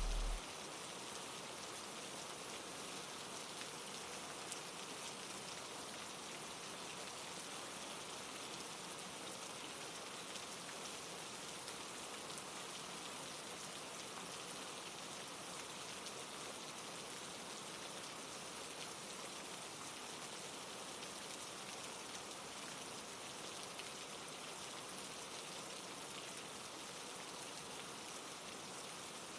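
Steady, even rush of falling water from a nature-sound ambience track. A low hum underneath cuts off within the first half second.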